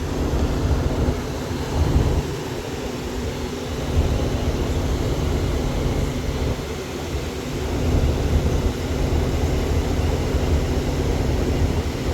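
Cadillac Escalade's V8 idling with a low, uneven rumble; the engine is shaking from a misfire on cylinder number 1.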